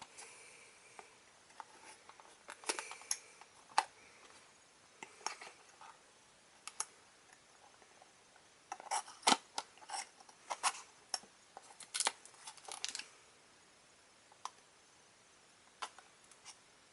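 Small cardboard toy box being handled and opened, with scattered clicks, taps and short scraping rustles as the taped flaps are picked and cut at. The sounds come and go, busiest about two thirds of the way through.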